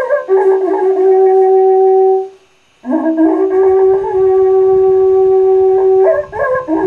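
Wakrapuku, the Andean horn built from coiled segments of bull horn, being blown: a few short notes, then a long held note, a brief break for breath about two and a half seconds in, and another long held note of about three seconds before short notes return near the end.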